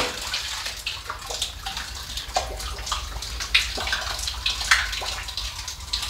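Water dripping and splashing back down a well shaft as a submersible drainage pump is hauled up out of it on its rope: a series of separate drips and small splashes, roughly one a second, over a low hum.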